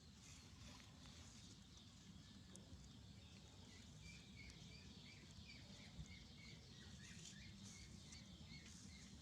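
Faint outdoor ambience with a bird chirping in a quick string of short notes from about four seconds in.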